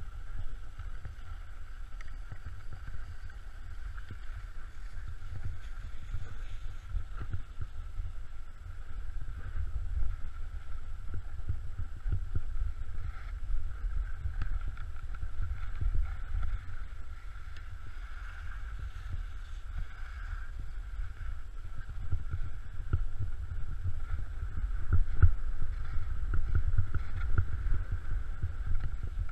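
Wind rumbling and buffeting on the microphone of a camera carried by a moving skier, over the steady hiss of skis sliding on groomed snow. The rumble swells near the end.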